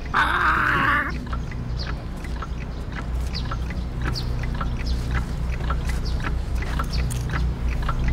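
Birds chirping in short, high calls, two or three a second, over a steady low hum. A short, loud, noisy sound comes first, lasting about a second.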